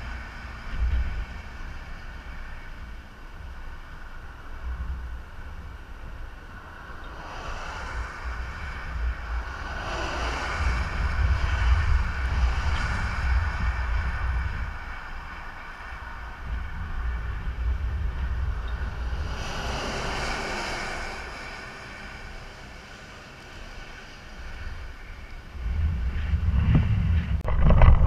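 Wind buffeting the microphone, with traffic passing on a wet highway: tyre hiss swells and fades twice as vehicles go by. The wind rumble grows much stronger near the end.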